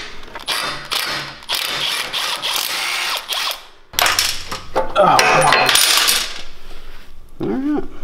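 A wrench and ratchet working the exhaust mounting bolts loose on a mini bike engine: a run of rapid metallic clicking and clinking, with a short pause a little before halfway.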